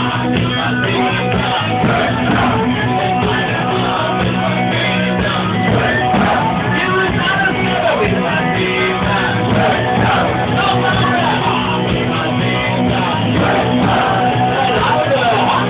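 Rock-style band music with singing over guitar, playing steadily.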